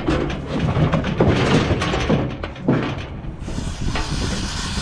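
Aerosol can of marker paint hissing as it sprays onto a cow's hide, with a longer steady burst in the last second or so, over a low rumble and occasional knocks.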